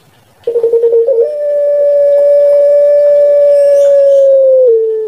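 Puter pelung (Barbary dove, Streptopelia risoria) cooing. A short rolling, pulsing coo about half a second in leads into one long, steady held 'kwok' note of about three and a half seconds, which steps down slightly in pitch at its end.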